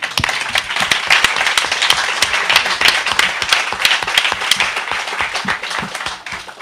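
Audience applauding: dense, rapid clapping that starts at once and tapers off near the end.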